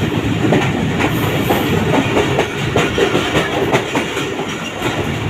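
Moving passenger train running at speed, with a steady rumble and the wheels clattering over rail joints in many quick, irregular clicks.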